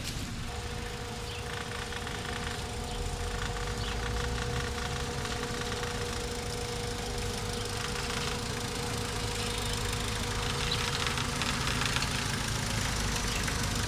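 Renault Trafic van's engine running at a slow crawl as it rolls forward, a steady low rumble. A thin steady whine sits over it and stops a few seconds before the end.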